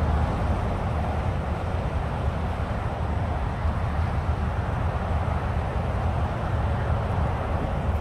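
Steady rumble of heavy highway traffic from nearby I-95: an even, continuous drone strongest in the low end, with no single vehicle standing out.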